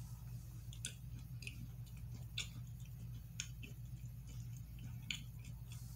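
A person chewing a soft, chewy cookie, with a few sharp mouth clicks at irregular intervals. A steady low hum runs underneath.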